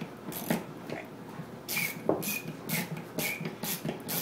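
Metal door stop being twisted by hand on its mounted base: a run of short scraping strokes, some with a brief squeak, about two a second.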